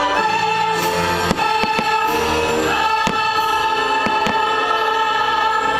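Fireworks show soundtrack music with a choir singing held notes, over which several sharp firework bursts pop.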